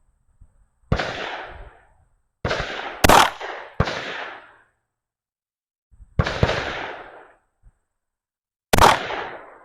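About six gunshots at uneven intervals, each a sharp crack with an echo tail that dies away over about a second; two are sharper and brighter than the rest.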